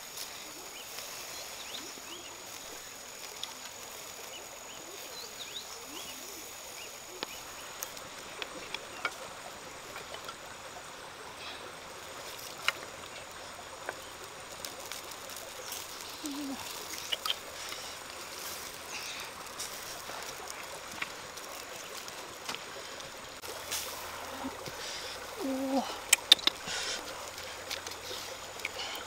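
Open wood fire crackling softly with scattered small clicks, over the steady hiss of a nearby stream. A few sharper clicks of the wooden sticks come near the end.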